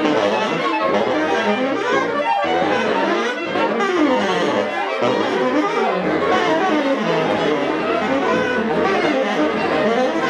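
Many instruments of the installation sounding at once in a dense, continuous wash of overlapping notes, some sliding in pitch, as they react to colored squares lifted by a hair dryer's airstream.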